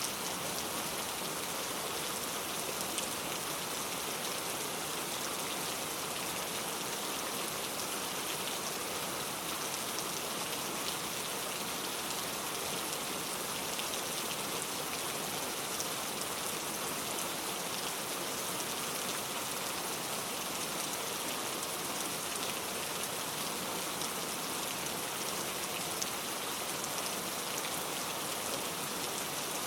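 Steady rain, heavy and without thunder, falling on a surface, with many small drop impacts.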